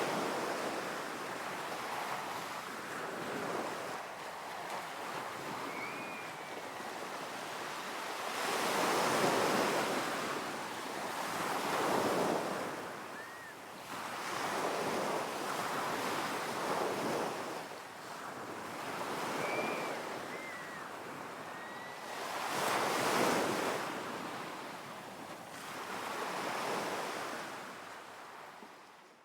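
Ocean surf on a beach: waves breaking and washing in, swelling and fading in surges every few seconds. A few short, faint high chirps sound over the surf.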